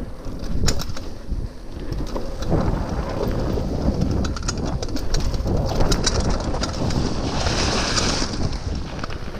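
Wind buffeting the microphone over the rattle and clicks of a mountain bike riding a rough dirt trail, with a brief hiss about eight seconds in.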